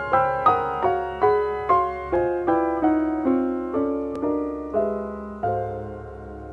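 Piano music: a slow melody of single struck notes, each dying away, over held lower chords, slowing near the end.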